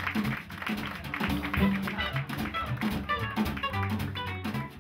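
Jazz music: a melody of plucked string notes over a bass line, with cymbal and drum strikes.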